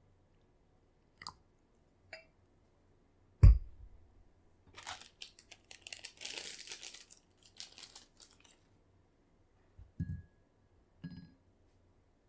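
Kitchen handling sounds while making cookies. Two light clicks are followed by a heavy thump on the work surface, then a few seconds of dry crunching and crinkling, and two soft knocks near the end.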